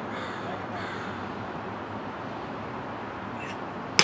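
Steady open-air background, then right at the end a single sharp crack: a cricket bat striking the ball.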